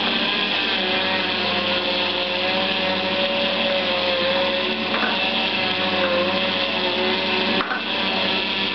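Zelmer JP 1500 vertical slow juicer running, its motor and auger pressing pineapple with a steady hum. A wavering, whine-like tone rides over the hum through the middle. There is a brief click near the end.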